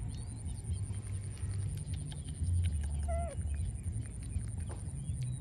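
Low, gusty wind rumble on the microphone with scattered light clicks, a thin steady high tone, and one short wavering animal call about three seconds in.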